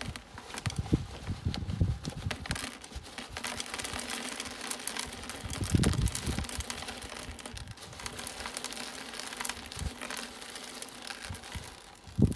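A plastic bag crinkling while gritty ballast is poured from it into a hollow plastic pond bottom drain, the grains trickling and pattering inside the dome, with a few dull knocks as the bag is shaken.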